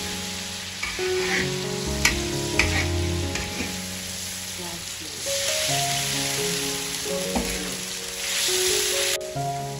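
Oil sizzling in a large wok as frying bits are stirred with a metal spatula, with a few sharp scrapes of the spatula against the wok; the sizzle swells louder twice in the second half.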